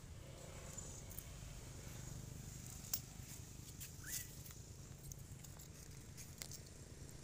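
Faint outdoor ambience with a steady low hum, a sharp click about three seconds in, and a short rising squeak about four seconds in.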